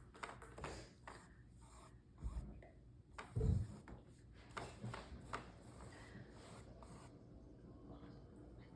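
Paintbrush scratching across a canvas in short, scattered strokes. There is a low thump about two seconds in and a louder one about three and a half seconds in.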